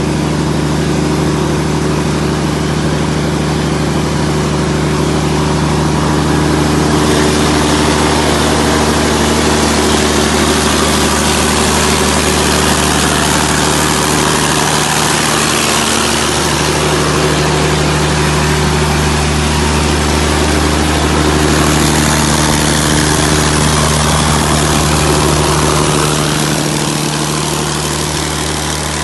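600 kVA Perkins diesel generator set running steadily at constant speed, with a steady low engine drone. A rushing hiss grows louder from about seven seconds in, and the sound eases off slightly near the end.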